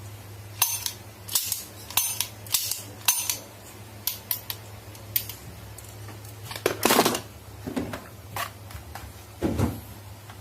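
Plastic toy guns being handled: sharp clicks and clacks, first a run of about five evenly spaced ones, then irregular ones with a louder clatter about two-thirds of the way through, over a steady low hum.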